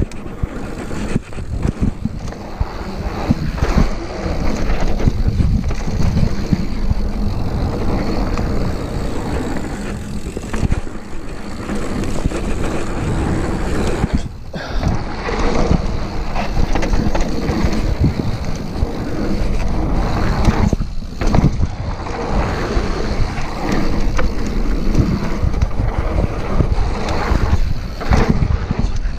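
Mountain bike ridden down a dirt trail: steady wind rushing over the microphone over the rumble of the tyres on dirt, with frequent knocks and rattles from the bike as it goes over bumps.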